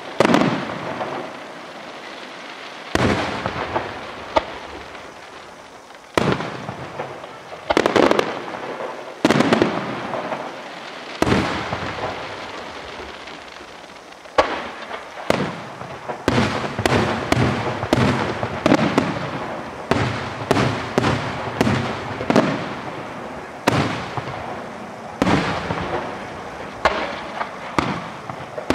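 Aerial firework shells bursting with loud bangs, each trailing off. The bangs come a few seconds apart at first, then follow one another rapidly, several a second, from about halfway through.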